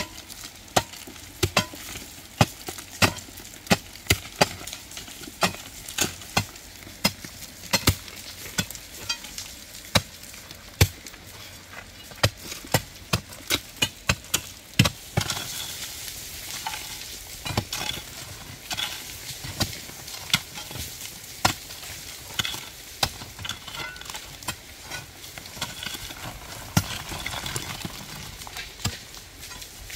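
Rain falling, with large drops landing close by as irregular sharp taps over a crackling hiss; the hiss grows louder about halfway through as the rain gets heavier.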